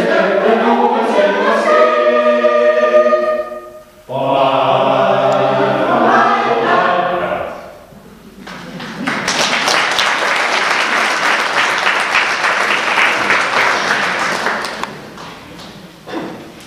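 Mixed choir of men's and women's voices singing the last phrases of a song, with a brief break about four seconds in and a final held chord ending about seven and a half seconds in. The audience then applauds for about six seconds, the clapping fading out near the end.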